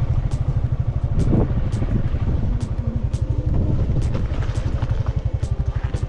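Motorcycle engine running at low revs, with a steady, even low beat throughout.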